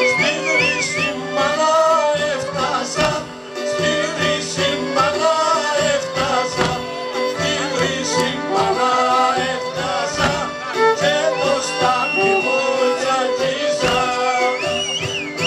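Cypriot traditional folk music for the stamna dance, with a violin melody and a singing voice.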